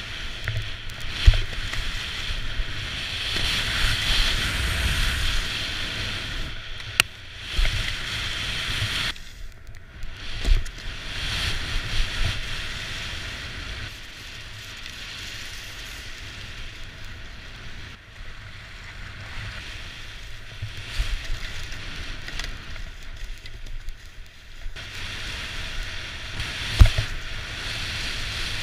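Skis sliding fast over hard groomed snow, a continuous scraping hiss with wind rushing over the action-camera microphone, broken by a few sharp knocks.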